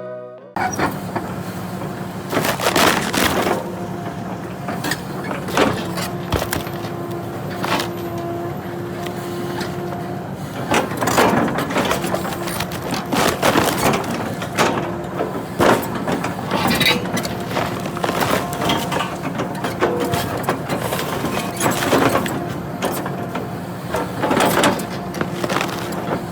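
Excavator engine and hydraulics running with a steady hum, while wood cracks, crunches and splinters again and again as the stump shear cuts and breaks up a tree stump.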